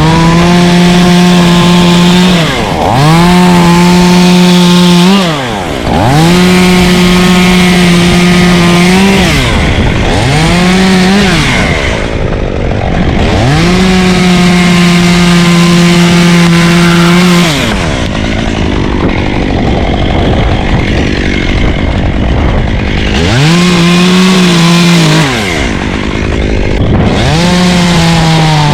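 Two-stroke chainsaw held at high revs while cutting limbs of a ponderosa pine. The engine note holds steady for a few seconds at a time, then drops and picks back up, over and over. It stays low for several seconds past the middle.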